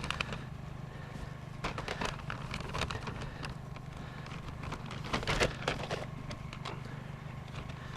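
Car engine idling steadily, under scattered clicks and clatters of plastic DVD cases being handled and sorted, busiest about five seconds in.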